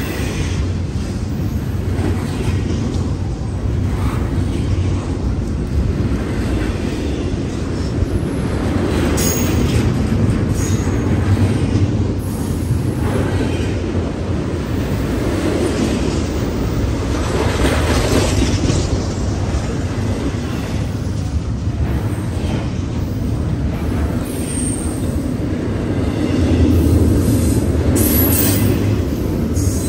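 Double-stack intermodal well cars rolling past: a steady, loud rumble of steel wheels on rail that swells and eases as the cars go by, with a few brief higher-pitched wheel sounds now and then.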